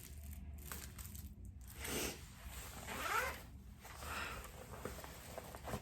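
Zipper on a backpack being pulled, a few short zips about a second apart.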